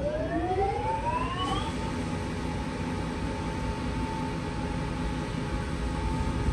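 Grinding-wheel spindle of a 1974 Blanchard No. 22-42 rotary surface grinder spinning up. Its whine rises in pitch for about the first second and a half, then levels off into a steady whine and hum at full speed.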